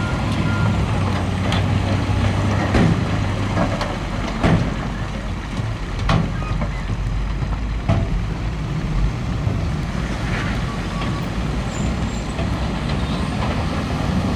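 Heavy diesel earthmoving machinery running steadily under load, with a sharp clank or knock every couple of seconds, as of rock or steel striking.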